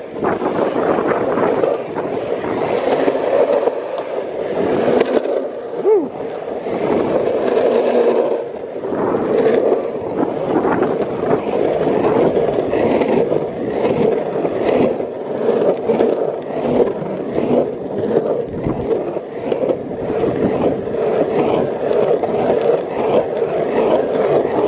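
Longboard wheels rolling over a concrete sidewalk: a steady rolling noise broken by frequent short knocks.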